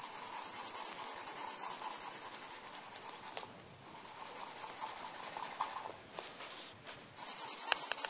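Blue felt-tip pen scribbling rapidly back and forth on the paper of a colouring pad, with a couple of short pauses.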